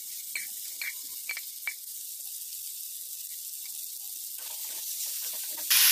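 Marinated chicken pieces sizzling in hot oil in a steel kadai over a low gas flame, a steady hiss. A few sharp clicks of the steel spoon against the pan come in the first two seconds as the chicken goes in.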